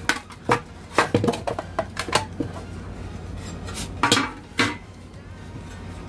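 Thin painted sheet-metal pieces of a cable-tray model clinking and rattling as they are handled and overlapped: a quick run of light metallic clicks in the first two seconds, then two louder clinks with a short ring a little after four seconds.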